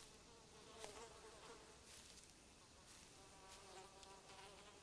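Flies buzzing faintly in a wavering drone, with a few soft ticks now and then.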